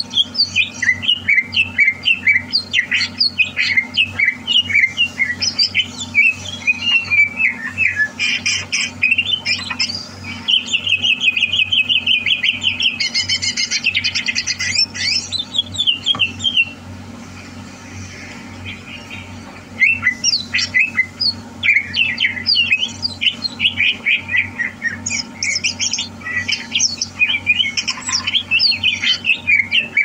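Green leafbird (cucak hijau) singing a long, fast, varied song of chirps and whistled notes, with a rapid trill about eleven seconds in. The song pauses briefly a little past halfway, then starts again.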